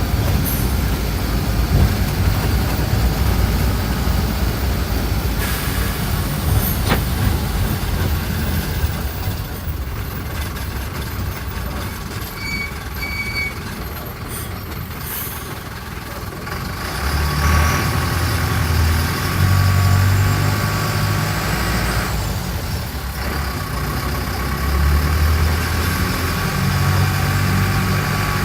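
Mercedes-Benz OF-1417 bus's diesel engine running on the move. It quietens for a while mid-way, then pulls harder again with a deep throb that swells and eases. Two short high beeps sound about halfway through.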